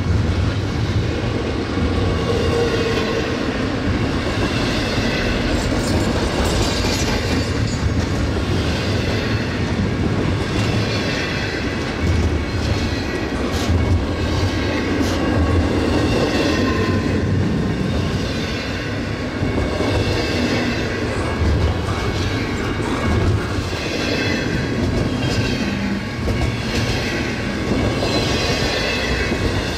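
Cars of a BNSF intermodal freight train rolling past: a steady rumble of steel wheels on rail with clickety-clack over the rail joints, and a high, wavering squeal from the wheel flanges that comes and goes.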